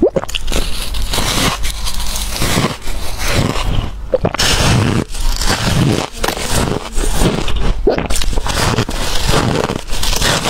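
Close-miked biting and chewing of large clumps of freezer frost: dense, repeated crisp crunching that goes on bite after bite.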